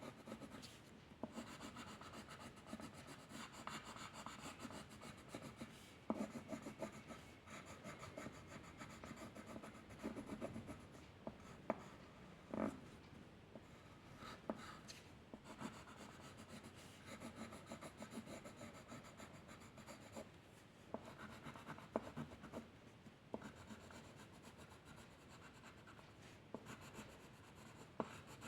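Faint strokes of a drawing tool scratching and rubbing on paper, in short irregular runs, with a few sharp taps in between.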